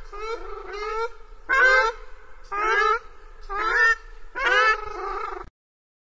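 Ruddy shelduck calling repeatedly, loud calls about one a second over a run of quieter ones; the calling cuts off suddenly near the end.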